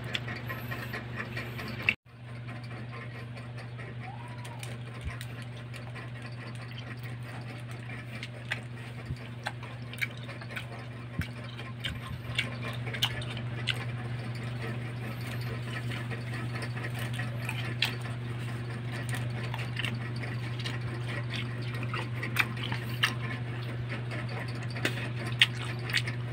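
Wet mouth sounds of grapes being bitten off a hanging bunch and chewed: scattered smacks and clicks over a steady low hum. A sharp click and a brief dropout come about two seconds in.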